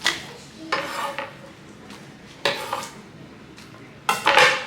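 Dishes and metal utensils clinking and clattering while meat is being seasoned for curry goat: four separate clatters, the last near the end the longest and loudest.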